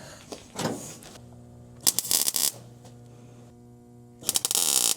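Two short bursts of crackling from a welder putting tack welds on a replacement steel body panel, each lasting about half a second, the second near the end. A steady low electrical hum runs between them from about a second in.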